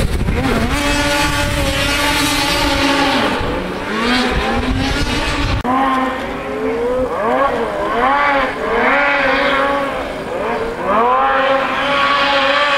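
Snowmobile engine revving hard on a steep hillclimb, its pitch rising and falling again and again as the throttle is opened and backed off. A heavy low rumble runs under it for the first five seconds or so, then stops abruptly.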